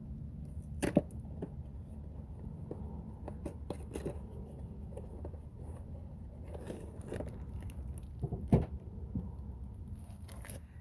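Scattered clicks and knocks over a steady low hum, with two louder knocks, one about a second in and one near the end.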